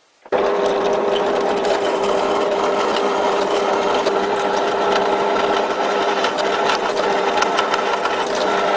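Drill press switching on just after the start, then running at a steady pitch while its twist drill bit bores into a metal workpiece, with the scraping of the cut mixed in.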